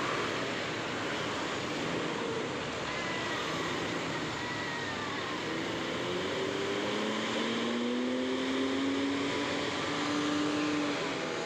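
Diesel bus engine labouring up a steep curved climb over steady road noise, its note rising slowly over several seconds from about halfway through.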